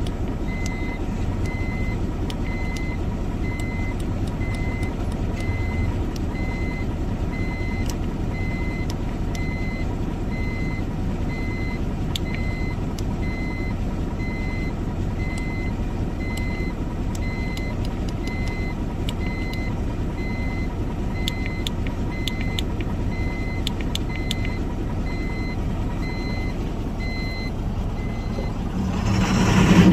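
Ashok Leyland BS6 dumper truck's diesel engine idling steadily, with an electronic warning beep repeating a little more than once a second that stops shortly before the end, when the engine grows louder. The engine has developed a noise that the mechanic takes to mean it will have to be opened up.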